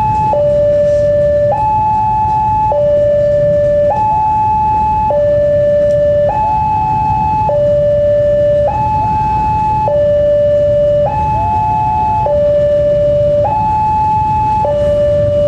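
Railway level-crossing warning alarm sounding a two-tone high-low signal, each tone held about a second before switching, repeating evenly: the crossing is active, warning of an approaching train.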